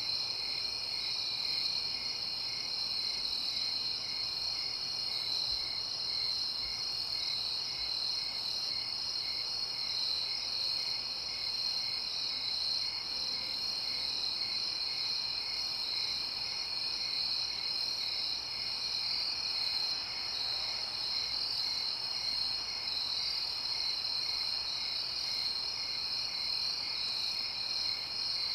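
Night insect chorus: crickets trilling steadily at a high pitch, with one insect chirping in an even pulse about twice a second.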